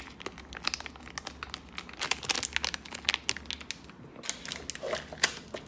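Plastic packets of modelling clay crinkling in the hands: a packet of Crayola Model Magic squeezed, then packets shuffled about in a box, in a quick, irregular run of crinkles with a short pause near the end.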